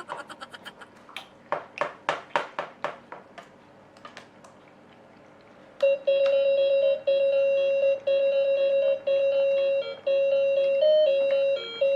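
A run of sharp clicks that fades out over the first few seconds, then the electronic tune of a Go Fishing toy starts about six seconds in: a simple melody of plain, single beeping notes.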